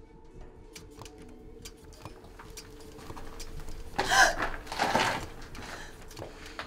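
Faint scattered clicks over a steady low hum, then about four seconds in a sudden loud crash-like burst, followed by a second one just under a second later.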